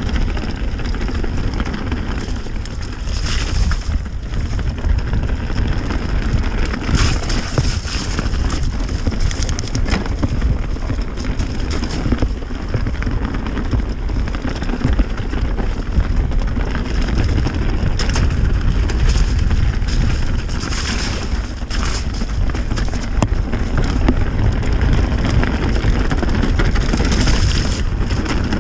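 Wind buffeting the microphone of a camera riding on a mountain bike at speed down a muddy trail, with continuous tyre rumble and frequent rattling knocks from the bike over roots and ruts.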